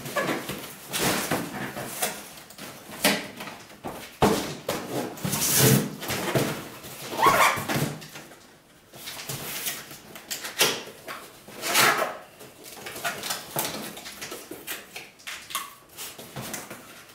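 Cardboard packaging being handled: boxes rubbing and scraping against each other and flaps being folded open, in irregular rustles. There is a sharp knock about four seconds in and a brief squeak about seven seconds in.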